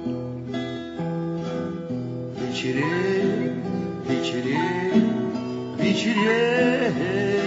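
Acoustic guitar strummed, playing the opening of a calm Russian courtyard song; about two and a half seconds in, a man's voice comes in, singing the melody with a wavering pitch over the chords.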